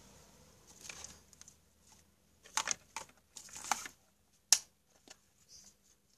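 Hands handling an electric fan's wires and plastic housing during a motor swap: a string of short rustles and clicks, the sharpest click about four and a half seconds in.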